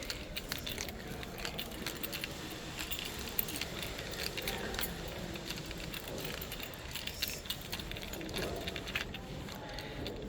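Many light, quick clinks and jingles, like small metal objects knocking together, scattered over a faint murmur of voices.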